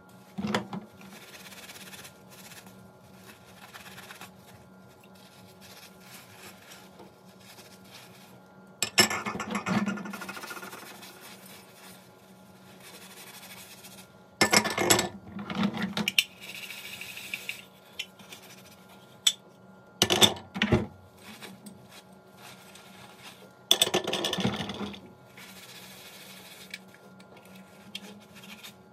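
Gas-stove burner parts being scrubbed with a sponge and steel wool over a bowl of soapy water in a stainless steel sink: wet rubbing and scraping, with four louder bursts of scrubbing and metal clinks, over a faint steady hum.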